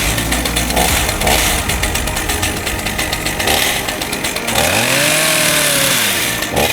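Chainsaw running under load, cutting wood. About two-thirds of the way in, its engine pitch sweeps up and back down, and the sound cuts off sharply at the end.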